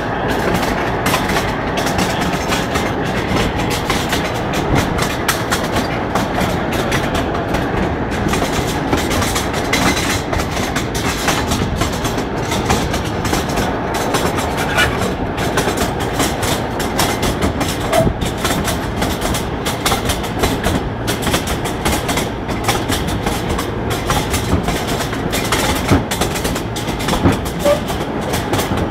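Wheels of a railway draisine (rail trolley) clattering along the track, a steady rattle dense with clicks from the rails, with two brief high squeaks, one about two-thirds of the way through and one near the end.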